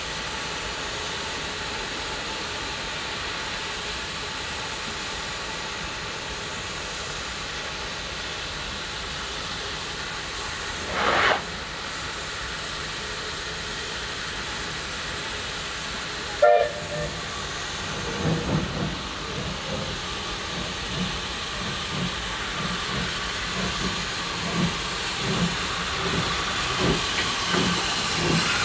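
A South African NGG16 Beyer Peacock Garratt steam locomotive standing and hissing steam. There is a brief whistle about eleven seconds in and a sharp, short whistle toot about five seconds later. Then slow exhaust beats begin and quicken slightly as the locomotive starts away.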